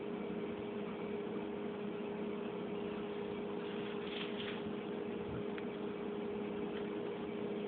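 A steady hum and hiss. About four seconds in comes a brief soft scuffle as a cat swats and paws at a pit bull lying on a tile floor.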